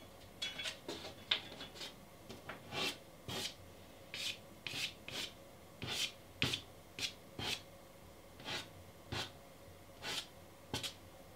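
Fingertips rubbing soft pastel over gritty pastel mat in a series of short, irregular strokes, about one or two a second, blending the colour into the grass.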